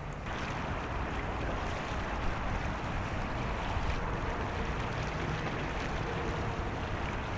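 Steady outdoor ambience of wind and moving water over a low rumble, with no distinct events. A brighter hiss comes in abruptly a fraction of a second in, where the audio cuts to the next shot.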